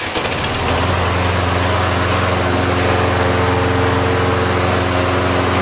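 Small gasoline lawn mower engine catching and picking up speed, then running at a steady pitch.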